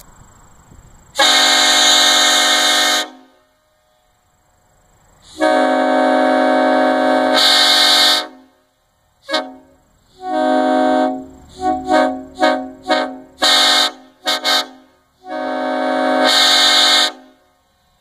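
Homemade PVC replica of a Leslie RS-5T five-chime train horn sounding a chord, heard from about 100 feet: two long blasts of roughly two and three seconds, then a quick run of about eight short toots, then a final long blast near the end.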